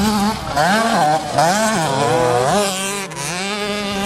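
Several 65cc two-stroke motocross minibikes racing, their engines revving up and falling back again and again as the riders work through the gears.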